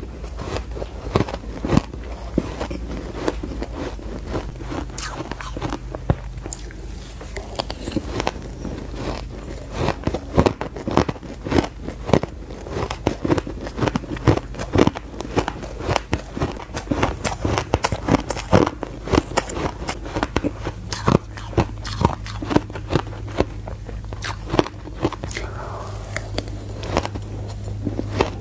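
Close-miked crunching of crushed purple ice being bitten and chewed by mouthfuls: a dense run of crisp crunches with little let-up, thickening about a third of the way in.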